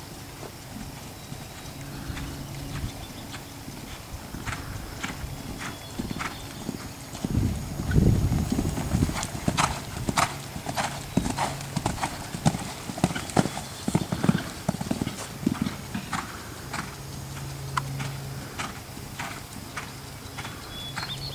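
A horse's hooves striking sand arena footing at a canter, hoofbeats coming in a rhythm of about two a second. About eight seconds in there is a loud low rumble.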